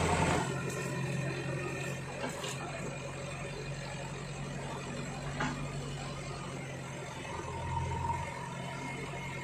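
JCB backhoe loader's diesel engine running steadily as its backhoe arm works, with a louder, deeper swell near the start and again about eight seconds in, and a few faint knocks.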